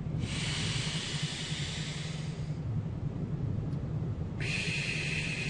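A person taking a deep breath close to the microphone: a long breathy inhale of about two and a half seconds, a pause, then a long exhale beginning near the end.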